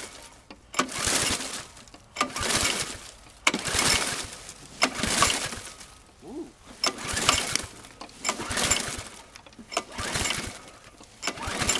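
Briggs & Stratton 625 series lawnmower engine being pull-started cold, before it has been primed. The recoil starter cord is yanked about nine times, a little over a second apart. Each pull is a short rasping whir as the engine turns over, and it never catches.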